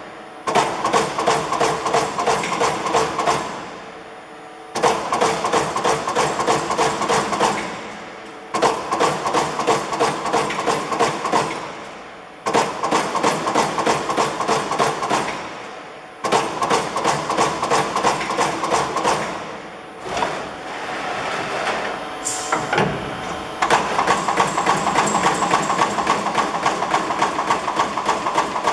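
LVD Delta 1250 LB CNC turret punch press punching sheet metal: fast strings of punch strokes, several a second, in runs of about three seconds with brief pauses as the sheet is repositioned. About two-thirds of the way through the punching stops for a few seconds of quieter machine running with a short high whine, as the turret indexes to another tool, then rapid punching resumes.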